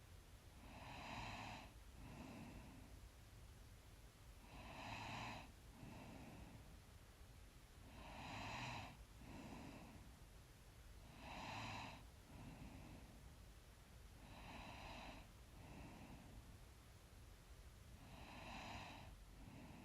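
Faint, slow breathing of a person asleep: about six breaths, one every three to four seconds, each a stronger breath followed by a softer one.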